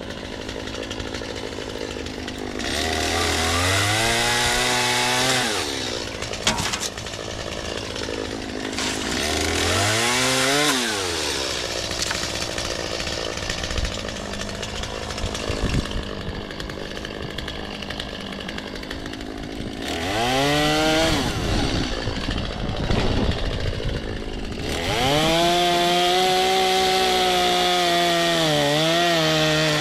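Gas chainsaw idling, then revved to full speed in four runs while cutting crepe myrtle wood. The last and longest run starts about 25 s in and briefly drops in pitch under load near the end.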